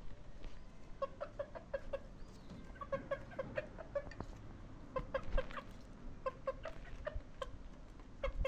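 Chickens clucking: short, low clucks in quick runs of several, about four runs with pauses between.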